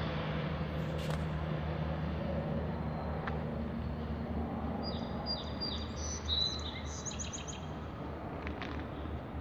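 Outdoor ambience of a steady low mechanical hum under a light wash of noise. From about five seconds in, a small bird chirps in a quick run of short, high notes that stops about two and a half seconds later.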